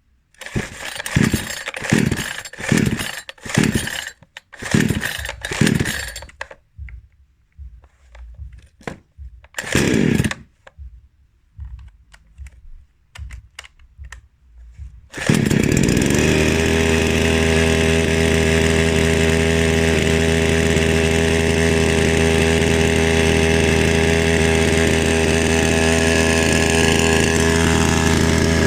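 Flinke FK 9600 two-stroke petrol chainsaw being pull-started on its first start. It gives a series of short turn-overs that fall away in pitch after each pull, then catches about halfway through and runs steadily.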